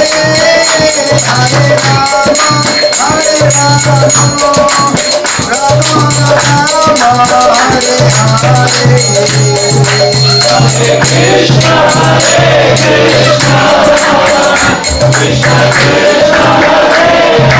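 Kirtan: a man sings a devotional chant lead, with small brass hand cymbals (karatalas) jingling in rhythm. A low held tone sounds underneath, coming and going in stretches of a few seconds.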